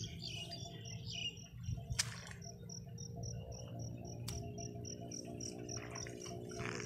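Insect chirping: a high, even pulse about four times a second that starts a little over two seconds in, with two sharp clicks, one near the start of the chirping and one about two seconds later.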